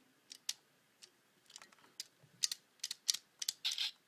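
Sharp plastic clicks, about a dozen at uneven spacing, as the button of a Kamen Rider Double Trigger Memory toy is pressed over and over. No voice sound comes from it: the memory is faulty and often fails to work when pressed.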